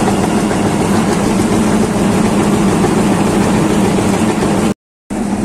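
Bulk feed truck's engine-driven conveying system running steadily as feed is drawn from the silo outlet through the intake pipe: a constant low machine hum with a rushing noise over it. It cuts out briefly near the end.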